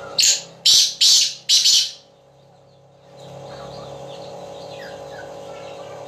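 Caged black francolin (kala teetar) calling: four loud, harsh, grating notes in quick succession in the first two seconds. A steady low hum and faint chirps sound behind it.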